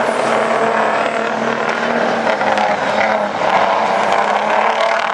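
Racing big-rig semi trucks with their diesel engines running hard around an oval track: a loud, steady, overlapping engine drone whose tones waver as the trucks pass.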